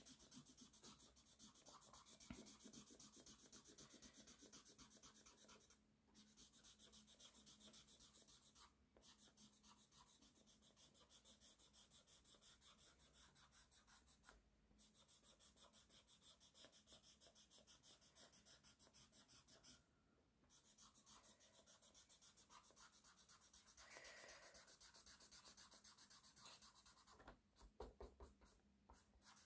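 Faint, quick rubbing strokes of a paper blending stump working pastel pencil into paper, in long runs of rapid back-and-forth strokes broken by a few short pauses.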